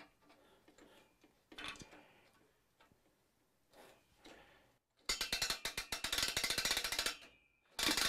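Ratchet on a Grace Continuum longarm quilting frame's rail clicking rapidly for about two seconds as the hand wheel is turned, then a short second burst near the end. Before that, faint knocks of the hand wheel and knob being fitted.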